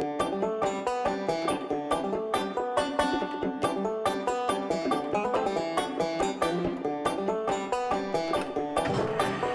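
Upbeat country background music led by a quickly picked banjo with a steady beat.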